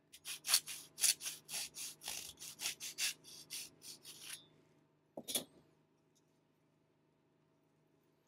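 A fine-bladed hand saw cutting through the casing of a TAGinn AFG-6 airsoft grenade: a quick run of back-and-forth strokes, about four a second, for some four seconds, then one last stroke about a second later before it stops.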